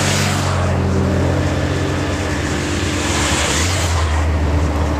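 Race-escort motorcycles riding past close by, their engines running steadily. The engine note drops as one goes by in the first second, and again near the end.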